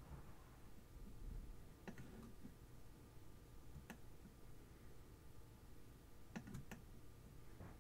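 A few faint, sharp computer mouse clicks, spread out over several seconds, against near-silent room tone.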